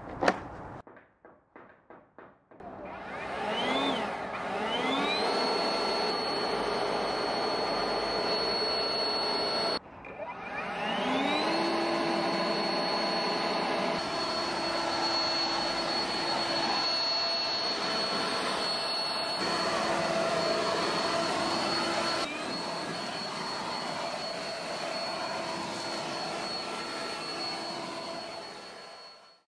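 Metabo LB 18 LTX BL 18-volt cordless leaf blower: its brushless motor and fan spin up with a rising whine, then run steady with a high tone over a loud rush of air. It cuts off abruptly about ten seconds in and spins up again the same way, runs steady, drops slightly in level about two-thirds of the way through, and fades out near the end.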